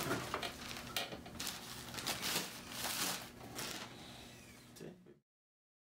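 Small electric finger motors of an Össur i-Limb prosthetic hand whirring faintly as the fingers open and close. Over the whirring come repeated sharp rustles and knocks as the hand grips and lifts a fabric cap off a pile of cloth.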